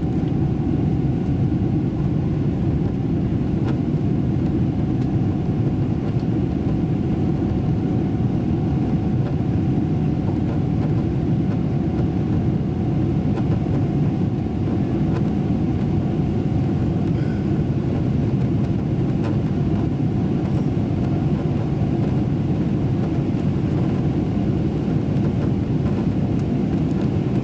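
Steady cabin noise of a Boeing 777-300ER in its climb, heard from a window seat over the wing: the GE90 engines at climb power and the rushing airflow make a constant low rumble, with a faint steady whine above it.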